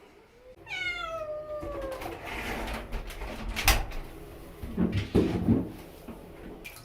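Siamese kitten meowing during its first bath: one long call falling in pitch about a second in, then shorter, lower cries around five seconds. A sharp knock midway is the loudest sound, with handling noise around the cries.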